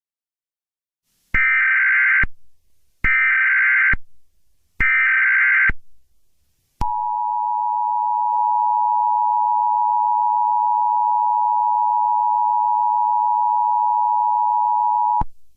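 Emergency Alert System tones: three short bursts of warbling SAME header data, then the steady two-tone EAS attention signal (853 and 960 Hz), held for about eight seconds before it cuts off.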